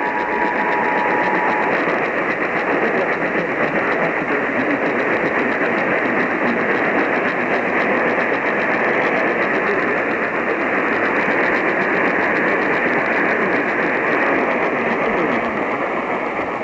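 Steady radio static hiss at a strong level. The two-tone EAS attention signal is faintly audible under it and stops about two seconds in.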